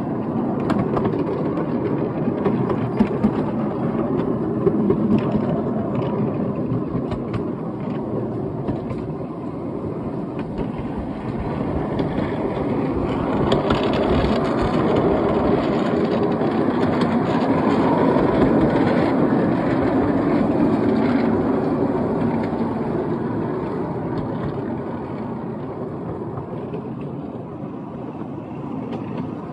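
Wheels of a seven-carriage ride-on miniature railway train rumbling along the track, heard from aboard the train, with occasional clicks. The running sound grows louder through the middle and eases off towards the end.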